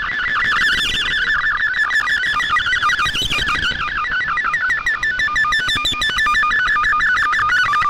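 MFSK64 digital-mode signal received on shortwave: a fast, continuous warble of tones stepping rapidly up and down over a faint hiss. It is carrying a colour picture, part-way through being decoded.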